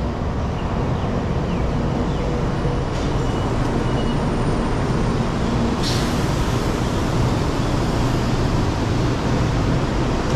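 Taiwan High Speed Rail train running, a loud steady noise that holds even throughout, with one short sharp click about six seconds in.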